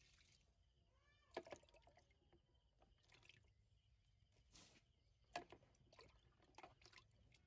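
A baby monkey gives one short squeaky call about a second in. Faint scattered clicks and rustles sound around it.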